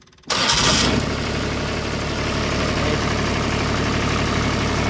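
Engine started by a newly fitted starter motor and relay: it fires up suddenly about a third of a second in and then runs steadily at idle, showing the new starter and relay work.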